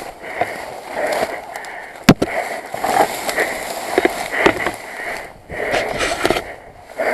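Husqvarna enduro motorcycle being heaved and dragged around by hand in dry grass: uneven rustling and scraping, with one sharp knock about two seconds in and a few smaller clicks.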